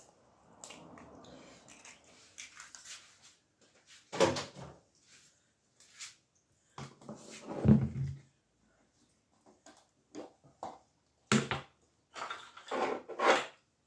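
Kitchen handling noises: a soft rustle of mashed potato being moved on a wooden board, then scattered knocks and clicks from hands at the board and a plastic tub having its lid taken off, with a cluster of clicks near the end.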